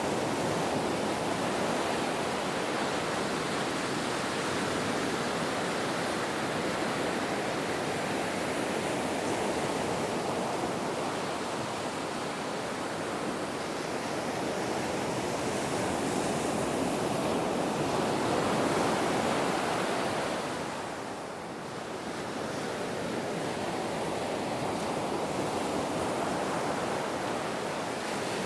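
Ocean waves washing onto a shore as a continuous surge of surf, swelling and easing slowly, with a brief lull about three quarters of the way through.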